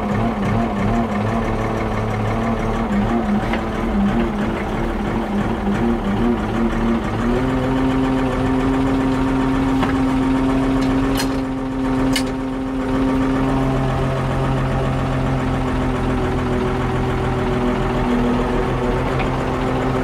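Oliver 1955 tractor's engine running at low speed, heard from inside its cab. About seven seconds in its speed rises a little and holds steady, and two short clicks come about a second apart near the middle.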